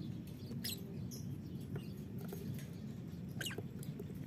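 Caged lovebirds giving a few short, high chirps and squeaks, the strongest a quick falling squeak about three and a half seconds in, over a steady low background hum.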